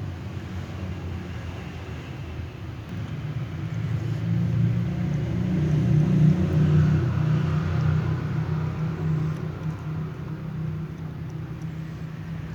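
Low rumble of a running engine, growing louder toward the middle and easing off again.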